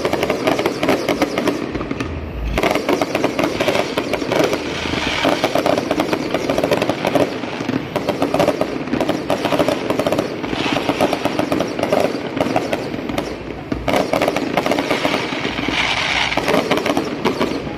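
Fireworks going off in a dense, continuous crackle of rapid bangs that swells and eases every few seconds.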